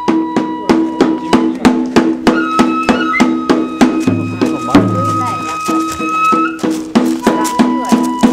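Kagura festival music: a transverse bamboo flute holding long high notes, stepping up about two seconds in and back down near the end, over a steady quick beat of drum strikes.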